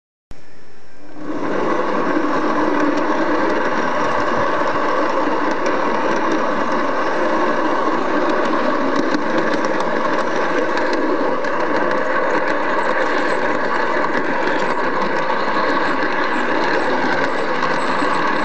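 G-scale model train running on its garden track: a steady mechanical running sound with a motor hum and wheel rattle. It starts suddenly just after the beginning and gets louder within the first second or so.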